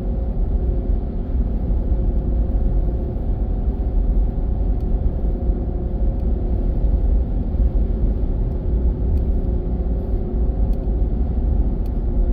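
Steady low rumble of a car's engine and tyres on the road, heard from inside the cabin while driving, with a constant hum over it.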